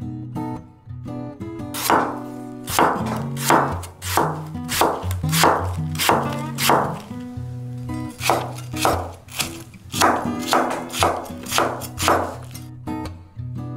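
Chef's knife slicing a raw apple on an end-grain wooden cutting board: a crisp cut ending in a knock on the board, about twice a second, with a short pause midway. Soft acoustic guitar music plays underneath.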